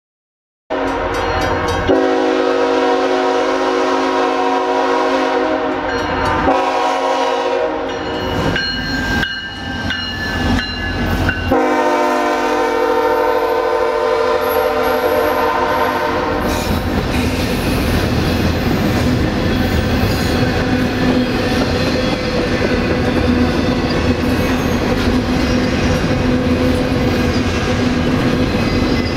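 A CSX diesel freight locomotive sounds its horn in several long blasts, broken by short gaps, through the first half. It then rolls past, followed by intermodal container cars with steady rumbling and clatter of wheels on rail.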